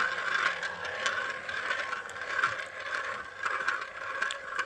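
Marbles rolling down a marble-run track: a steady rolling rattle with scattered clicks as they knock along the run.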